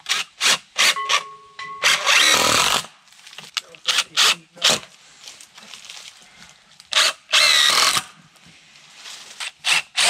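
Power drill run in quick trigger bursts and a few longer runs of about a second each, like screws being driven in to fix fittings in place.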